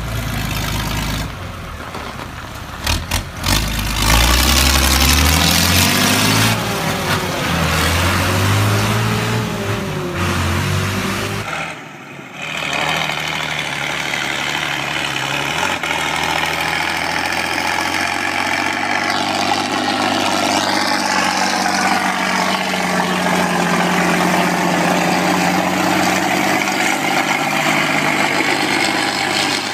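Straight-piped tractor diesel engines. First a red Fiat tractor is revved up and down several times. About twelve seconds in, it gives way to a Ford 7610 pulling a loaded silage trailer, running steadily under load with its pitch rising slowly midway.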